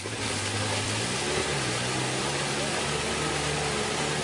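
Polaris RZR 4 side-by-side's engine running under throttle as it drives through a mud hole, its pitch dropping and rising as the revs change about one and two seconds in.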